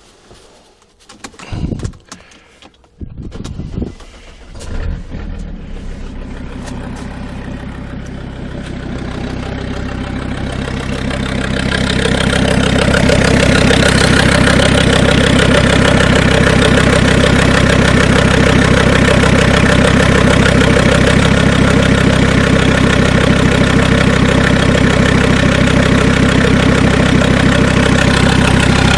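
Mercedes 2.7 CDI five-cylinder diesel engine starting with a few uneven clatters, then settling into a steady idle, with a knock that the owner takes for the hydraulic lash adjusters.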